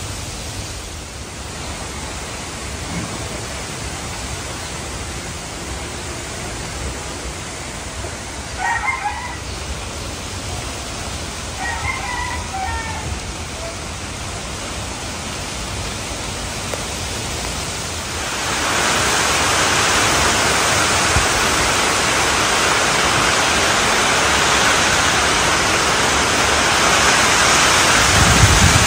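Strong wind rushing through coconut palms and bamboo, with wind rumbling on the microphone. A rooster crows twice, about 9 and 12 seconds in. About 18 seconds in the rush grows suddenly louder and brighter as rain sweeps in.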